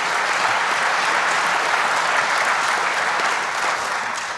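Audience applause, a steady clatter of many hands that tails off near the end.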